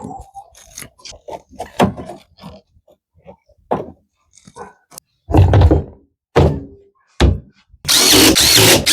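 Washer parts being handled and fitted back into place: scattered knocks and clicks, then several heavy thunks. Near the end a power drill starts up, driving a screw with a whining motor.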